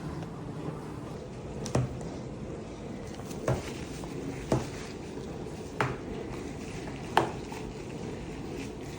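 Five short knocks or taps, spaced about one to one and a half seconds apart, over a steady low hiss: craft items being set down or handled on a work surface.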